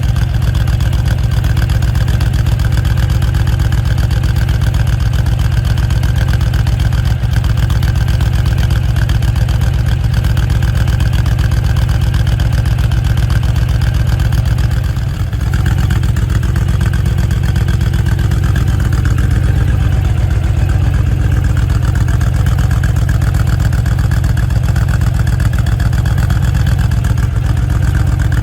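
Honda VT1300CX Fury's V-twin engine idling steadily, with a brief dip about halfway through.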